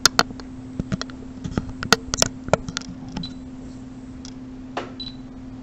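Sharp small clicks and taps: a quick cluster at the start and another about two seconds in, with a few fainter ones later, over a steady low hum.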